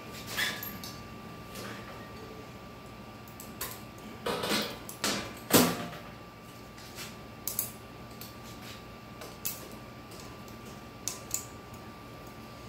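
Scattered light metallic clicks, clinks and scrapes of a valve spring compressor and valve keepers against a compressed valve spring and retainer on a cylinder head, as the keepers are worked into place. A cluster of louder clinks comes about four to six seconds in, the sharpest near six seconds.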